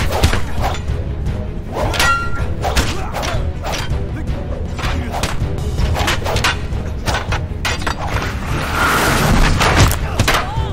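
Film fight soundtrack: music under a rapid string of sharp strikes from bamboo staffs and blows, with a louder crashing burst around nine seconds in.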